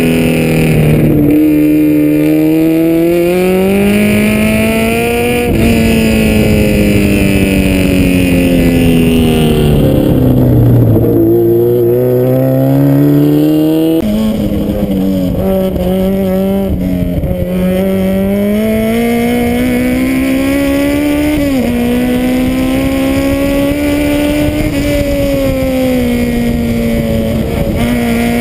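Honda CRX race car engine heard from on board at full effort on a track, its pitch repeatedly climbing under acceleration and falling away through gear changes and braking. It drops lowest about ten seconds in, for a slow corner, and the sound changes abruptly about halfway through.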